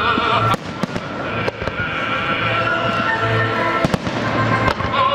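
Fireworks shells bursting with several sharp cracks and bangs over loud pyromusical music, a sustained melody with a wavering vocal line and a low pulsing beat.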